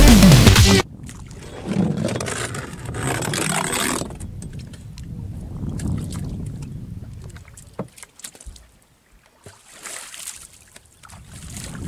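Dance music stops abruptly about a second in, giving way to the sounds of a small fishing boat at sea: wind and water noise with scattered knocks and clicks as the handline is hauled over the gunwale. Near the end, a splash as a hand is dipped into the sea.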